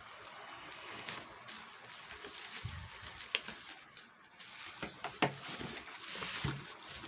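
Plastic parcel packaging rustling and crinkling as it is handled and opened, with a few sharp clicks and snaps.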